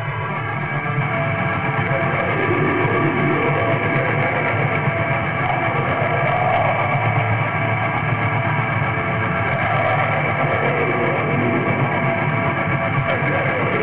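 Raw, lo-fi black metal: a dense, steady wall of distorted guitar.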